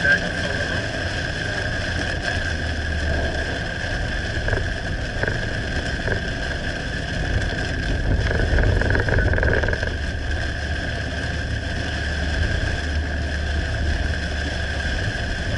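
Steady road and engine noise of a moving car heard from inside the cabin: a continuous low rumble with a steady higher hum over it.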